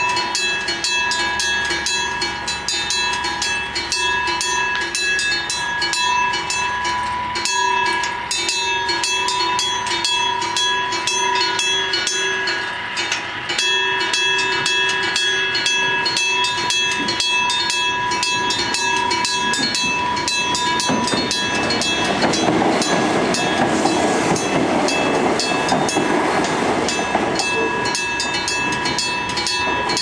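Japanese railway level-crossing alarm ringing with a fast, even beat, stumbling out of rhythm briefly a couple of times, but it keeps on ringing. A train passes over the crossing for several seconds in the second half, louder than the alarm.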